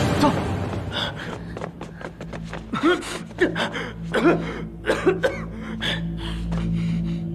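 Fight-scene soundtrack: short grunts and gasps mixed with quick hits and swishes over background music. The music settles into a low steady drone in the last couple of seconds.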